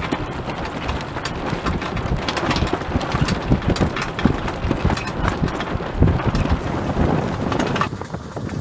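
Wind buffeting the microphone aboard a sailing yacht under way, in irregular gusts over the wash of choppy water. It eases slightly near the end.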